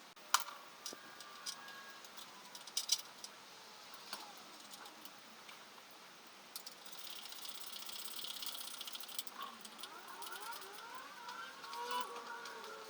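Metal tools and engine parts clinking and ringing as they are handled, a few sharp clicks in the first few seconds. From about halfway a steady high hiss starts and runs on.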